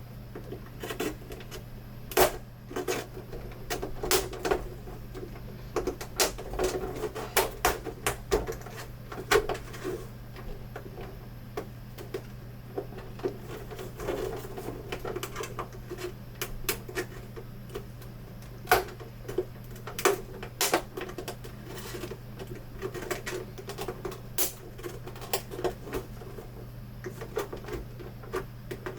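Irregular plastic clicks, taps and knocks from a monitor's plastic casing being pressed and handled as its snap-fit clips are pushed back into place.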